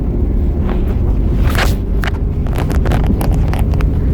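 A moving vehicle's steady low rumble with wind noise, and a run of short clicks and knocks from about a second and a half in.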